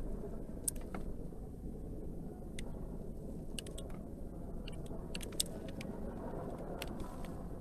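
A steady low background rumble, with a few faint clicks and scrapes as a small knife cuts away excess soap from a bar.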